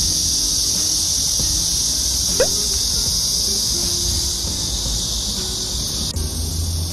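Steady chorus of summer cicadas, a continuous high-pitched buzz. A short rising squeak about two and a half seconds in.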